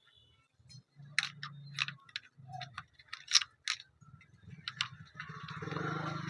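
Scattered light clicks and taps of a replacement cooling fan being handled and set into an induction cooktop's plastic casing, over a low hum that grows steadier near the end.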